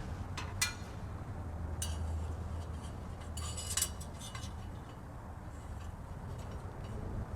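Light metallic clinks and taps from tools and exhaust parts being handled, scattered through the first half, over a steady low hum.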